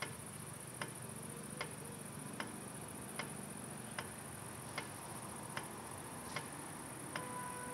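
Level crossing warning bell striking steadily, a short sharp stroke about every 0.8 seconds, over a constant high hiss of insects in the grass. A faint held tone begins near the end.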